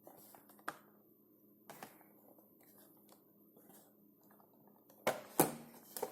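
A Funko Pop's cardboard-and-plastic box being handled: scattered light clicks and taps, then louder rustling and handling noise about five seconds in.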